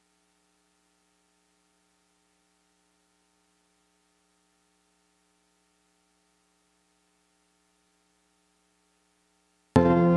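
Faint steady electrical hum, then an organ starts playing loudly and suddenly near the end.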